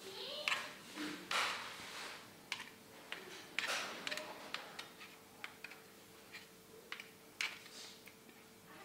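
A metal spoon and spatula scraping and clicking against a glass mixing bowl as thick cake batter is folded from the bottom to the top, in irregular strokes.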